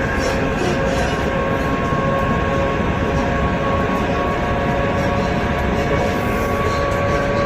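EP2D electric multiple unit accelerating: a steady, loud running noise with a traction whine whose pitch creeps slowly upward.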